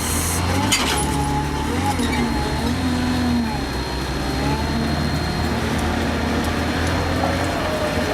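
Heavy diesel engine of a Volvo log loader running steadily under load, a deep continuous drone with faint wavering whines over it.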